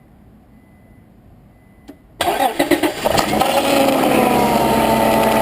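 Honda Accord 3.0-litre J-series V6 engine cranking briefly and starting about two seconds in, then running steadily at idle. This is the first start after a new alternator has been fitted.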